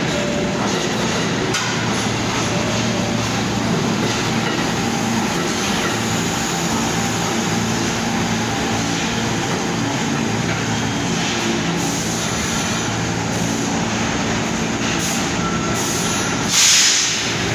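R46 subway train running into the station and slowing to a stop, with a steady rumble of wheels on rail and a low hum from the car. About a second before the end comes a short, loud hiss of air as it halts.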